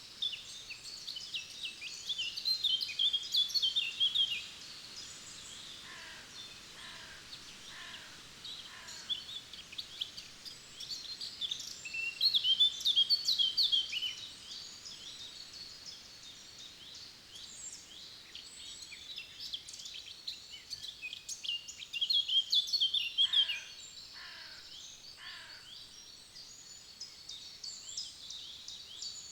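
Forest songbirds singing: one bird repeats a loud, rapid song phrase of two to three seconds three times, about ten seconds apart, over a faint chorus of more distant birds. Twice, a slower series of four or five lower, falling notes sounds between the phrases.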